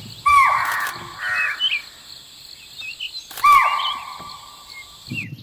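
Two loud, harsh animal calls about three seconds apart, each dropping in pitch into a rasping tail, over a background of small birds chirping.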